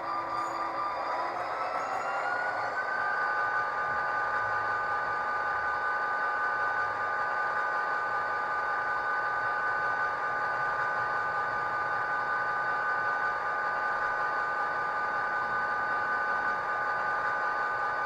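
Sound-decoder recording of an EMD SD45 diesel locomotive played through an HO-scale model's small speaker: the engine and turbocharger whine rise in pitch over a couple of seconds about a second in, then run steadily at the higher pitch.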